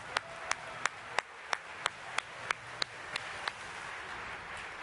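Brisk footsteps on a hard stage floor, about three steps a second, stopping about three and a half seconds in.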